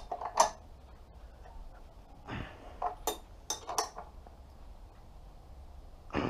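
Sharp metallic clinks of a spanner on a motorcycle's rear axle nut as it is tightened. The loudest comes about half a second in, and a few more follow between three and four seconds.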